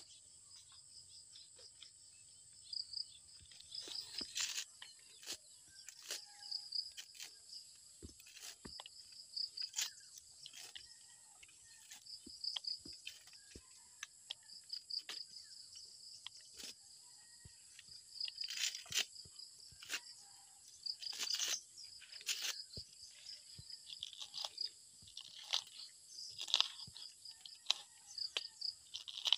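Insects chirring steadily in an even, high-pitched pulse, over scattered sharp knocks, crunches and scrapes from hands handling food. Near the end a wooden stick mashes red chilies in a coconut-shell bowl.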